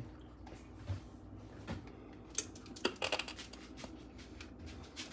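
Quiet kitchen handling sounds: a few scattered light clicks and knocks, the sharpest about two and a half seconds in and a small cluster just after, over a faint steady low hum.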